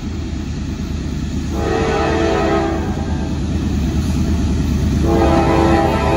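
Norfolk Southern diesel freight locomotive's multi-chime air horn sounding for a grade crossing: a blast of about a second starting a second and a half in, then a longer one starting about five seconds in, over the steady rumble of the approaching train.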